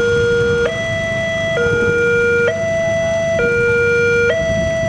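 Railway level-crossing alarm sounding a loud two-tone electronic signal, switching between a lower and a higher tone about once a second. It warns road users that a train is approaching while the barriers are down.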